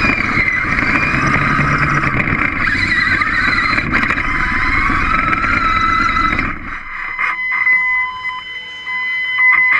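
Electric drive motors of a small wheeled robot whining, rising and falling in pitch as it drives and turns, over a low rumble of its wheels on a concrete floor. About two-thirds of the way through the rumble stops, leaving a steady high whine and a few light knocks.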